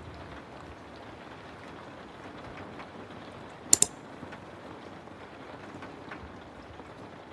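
Steady rain hiss, with a sharp double click about three and a half seconds in.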